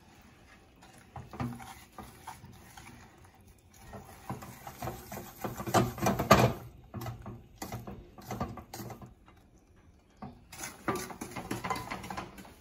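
Wooden spoon stirring and scraping around a stainless steel saucepan of melted butter and sugar, which is being cooked until the sugar dissolves. The scrapes and clicks come irregularly, loudest around six seconds in, with a short pause near ten seconds.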